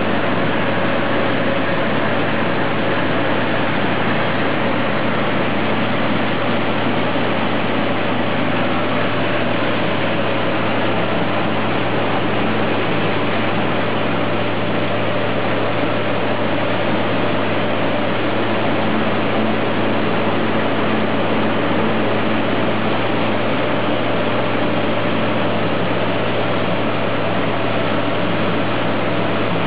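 Rice mill plant machinery running: electric motors, blowers and milling machines together make a loud, steady mechanical din with a constant low hum underneath.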